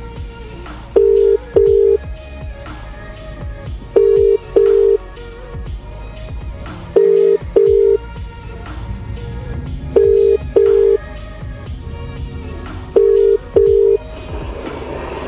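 Telephone ringback tone through a phone's speaker: a double ring, two short beeps close together, repeating every three seconds, five times, while the call waits to be answered. Quieter background music plays underneath.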